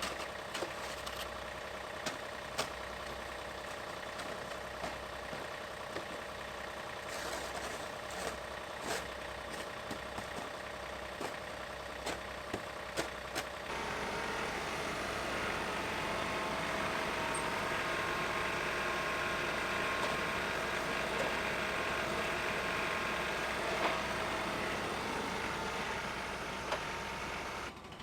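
Engine running steadily, with scattered sharp clicks and knocks over it; about halfway through it suddenly gets louder and fuller.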